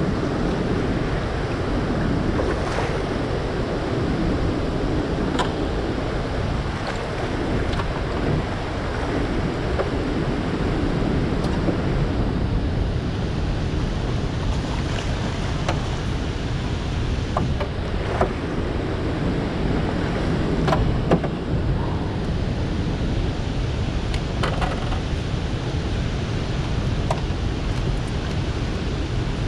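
Steady rush of turbulent water released through a dam's gates, churning around a small boat, with wind on the microphone. A few small clicks and knocks are scattered through it.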